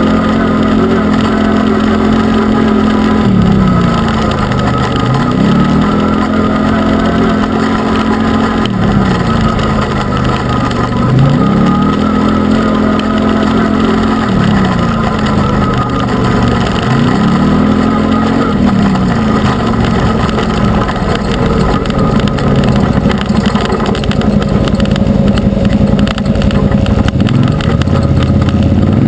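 Arctic Cat Wildcat UTV's V-twin engine running under way off-road, its revs climbing, holding level and dropping back four times, then running steadier near the end.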